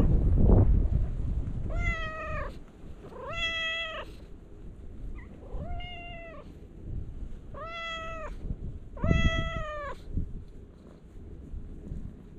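A cat meowing five times in a row, each meow a short, clear call that rises slightly and falls away, roughly every one and a half to two seconds. Low rumbling noise on the microphone comes near the start and again alongside the last meow.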